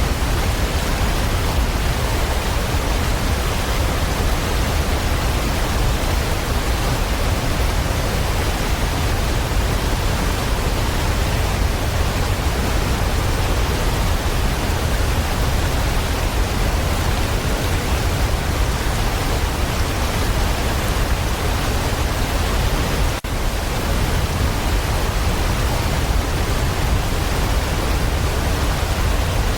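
Steady rain, a dense, even hiss with a strong low rumble underneath; it dips for an instant about 23 seconds in.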